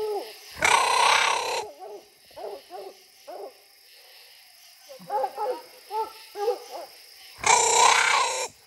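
Coonhound barking treed: a run of short, repeated chop barks at the tree where it holds a raccoon, with two louder rough bursts about a second long, one near the start and one near the end.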